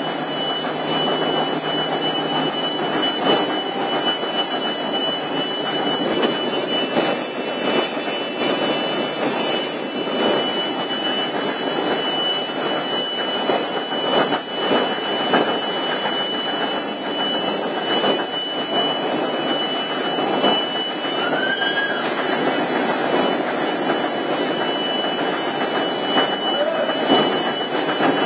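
Food pad production line machinery running: a steady, dense mechanical noise with light clatter and a thin, steady high whine.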